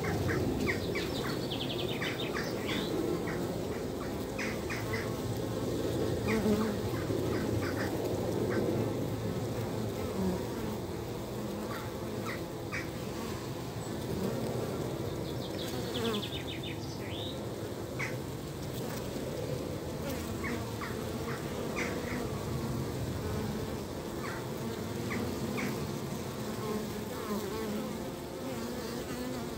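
Honeybees at a hive entrance, buzzing steadily: the low hum of many wings as bees land, fan and take off.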